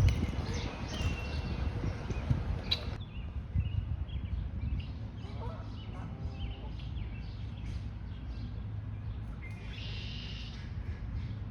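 Small birds chirping in short, scattered calls over a steady low rumble, with a brief lower-pitched call about six seconds in and a denser burst of chirping near the end.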